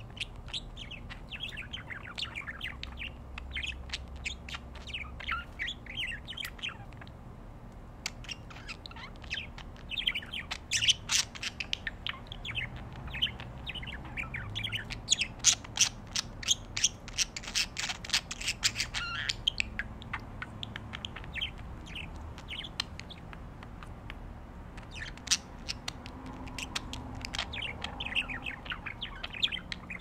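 Budgerigars chattering: rapid runs of short chirps and warbles, busiest and loudest about a third of the way through, with brief lulls.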